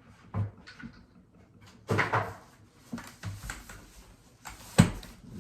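A keyboard being taken out of its box: packaging rustling and scraping, with scattered knocks. The longest rustle comes about two seconds in, and a single sharp knock near the end is the loudest sound.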